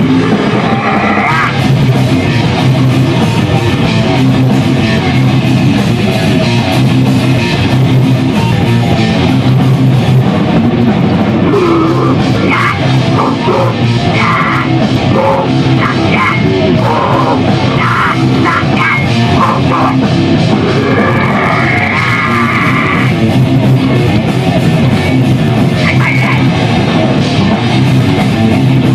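Loud rock music with distorted electric guitar and drum kit, with short sung or shouted phrases here and there.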